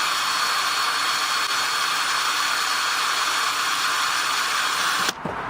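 Electric drill running at steady speed, boring a hole for zip-tie drift stitching, then cutting off abruptly about five seconds in.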